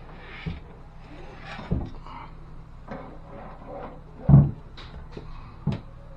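Four knocks and bumps from handling the wooden vanity cabinet and its parts, the loudest about four seconds in, over a steady low hum.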